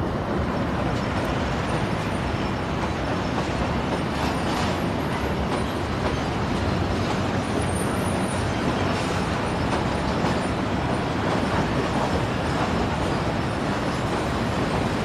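Steady, loud rumble and rolling noise of heavy vehicles passing close by, with faint high-pitched squeals running through it.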